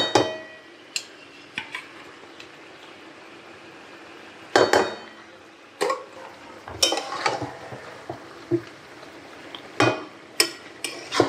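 A metal spoon or spatula clanking and scraping against a cooking pan while chicken is stirred and browned in a spice paste: irregular sharp knocks, a few in quick clusters, over a faint steady sizzle.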